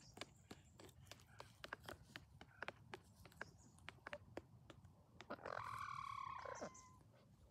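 Hens pecking snack from a plastic tray, a quick irregular run of sharp taps. About five seconds in, one hen gives a single drawn-out call of about a second and a half that drops in pitch at the end.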